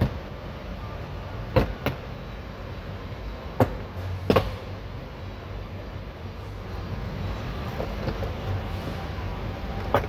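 Plastic trim clips of a 2016 Hyundai Tucson's front door panel being worked loose. There are about five sharp clicks and snaps in the first half and a few fainter ones later, over a steady low hum.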